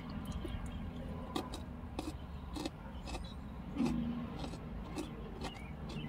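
Fritos chili cheese corn chips crunching between the teeth as they are chewed, irregular sharp crunches every half second or so, over a steady low background hum.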